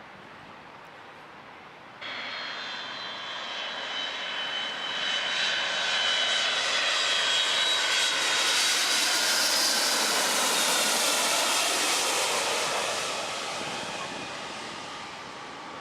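Jet airliner passing on approach to land: engine noise cuts in abruptly about two seconds in, swells to a loud peak and fades, with a high fan whine that slowly falls in pitch.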